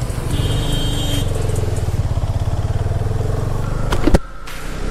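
Husqvarna Svartpilen 250's single-cylinder engine running steadily as the motorcycle rides along. A sharp click comes about four seconds in, and the sound drops away briefly after it.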